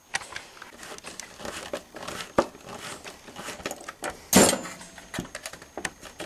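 Hand work on hardware: scattered small clicks, rattles and rustling as parts are handled and fitted, with one louder knock a little past four seconds in.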